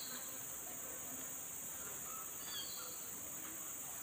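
Steady high-pitched chorus of insects, with a brief chirp about two and a half seconds in.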